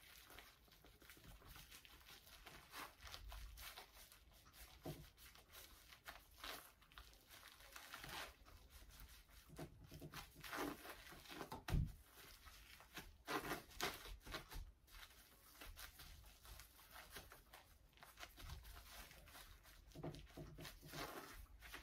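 Faint rustling and crinkling of gloved hands rolling and pressing a sushi maki roll on a cutting board, with one soft knock about twelve seconds in.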